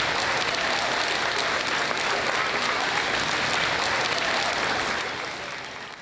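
Large audience clapping steadily, fading out near the end.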